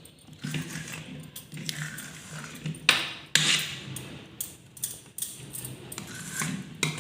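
Light clinks and scrapes of kitchen utensils against a pan, with a couple of sharper knocks about three seconds in.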